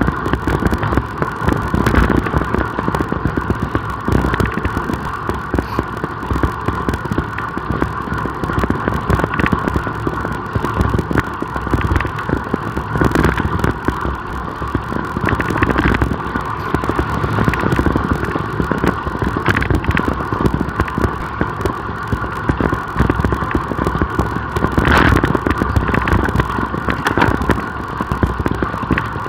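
Road bicycle riding at speed: wind buffeting the microphone and tyres humming on the road, with occasional knocks from the bike or the road surface.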